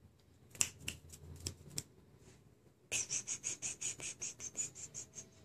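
A fast run of light finger clicks, about eight a second, from fingers flicked in front of a cat's face, starting about three seconds in. Before that, a few soft scattered clicks.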